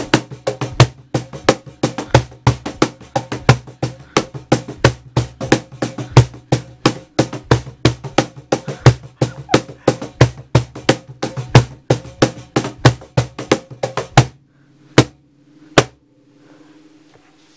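Relaxing guitar background music with rapid, sharp clicks several times a second. Both stop abruptly about fourteen seconds in, leaving a couple of single clicks.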